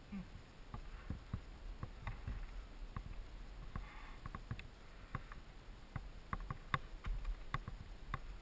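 Irregular soft clicks and knocks of a rider's boots and gear as he shuffles around a stopped dirt bike on dry dirt, over a low steady wind rumble on the microphone; the engine is not running.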